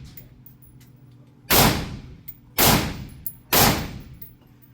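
Three gunshots fired about a second apart, each a sharp crack with a short echoing tail, with fainter clicks between them.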